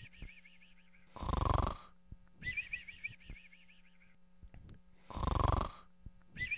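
Cartoon-style snoring: a loud snore on the in-breath followed by a wavering whistle on the out-breath. It comes twice, about four seconds apart.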